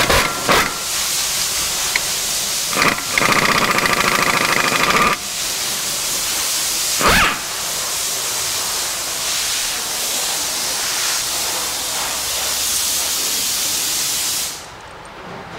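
Pneumatic impact wrench on a shop air hose running in long spells, a steady loud hiss of exhaust air. From about three to five seconds in it hammers rapidly, and there is another short burst about seven seconds in, as it works suspension nuts loose. It stops about a second before the end.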